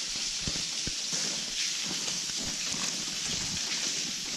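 Steady hiss of water dripping and trickling inside a brick railway tunnel, with scattered small ticks and taps.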